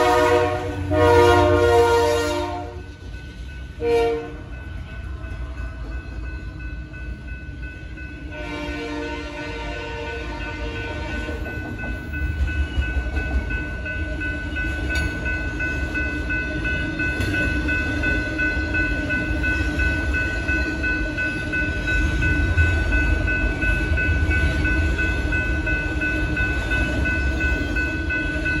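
Freight locomotive air horn sounding a loud chord through the first couple of seconds and a short blast about four seconds in. Then a freight train of autorack cars rolls past the crossing with a steady low rumble, and a few steady high tones ring over it.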